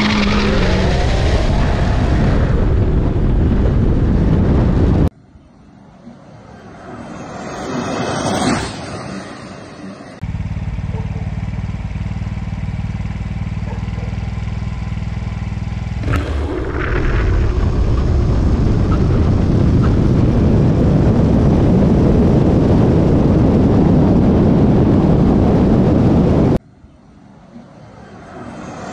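An electric scooter run at high speed, in short cut-together clips. An onboard camera picks up a steady, heavy rush of wind and road noise, and roadside takes catch the scooter approaching and passing, the sound swelling and then falling away. The sound breaks off abruptly at each cut.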